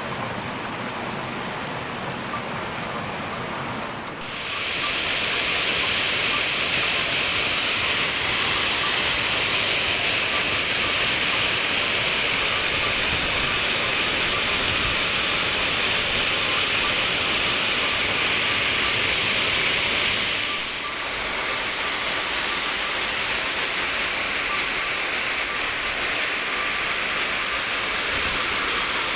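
Waterfall rushing: a loud, steady roar of falling water that grows louder about four seconds in and shifts briefly again about twenty seconds in.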